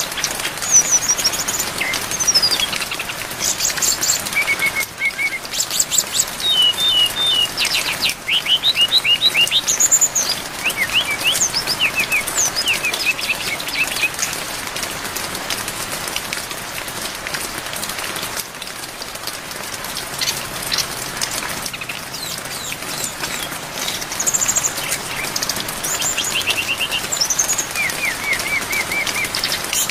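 Brown-chested jungle flycatcher (sikatan rimba dada coklat) singing a busy, varied song of short chirps, slurred whistles and rapid trills over a steady hiss of rain. The song thins out about halfway through and picks up again near the end.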